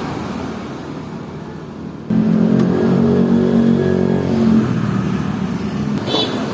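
Washing machine motor switching on about two seconds in and running with a steady hum, working again after its loose wire was reconnected. A short click near the end.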